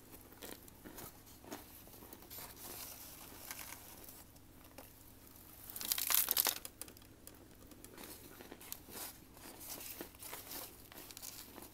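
Chunks of baked starch crunching and crumbling between fingers and teeth: a run of small dry crackles, with one louder crunching bite about six seconds in.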